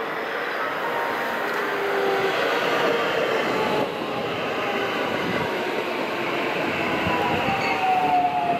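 JR West 521 series electric multiple unit running past: a steady rush of wheels on rail, with faint whining tones that slide down in pitch, the clearest near the end.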